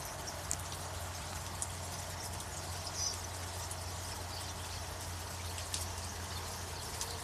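A few faint, brief high chirps from a flock of small birds, over a steady low hum and hiss.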